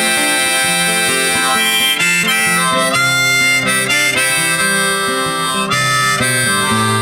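Background song in an instrumental break between its sung verses: a sustained melody line over accompaniment, with no vocals.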